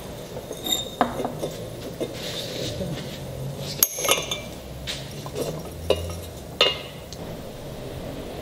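Small brown glass bottle turned against a red-hot wire and split in two along the heated line: a string of sharp glass clinks and ticks, the loudest about four seconds in.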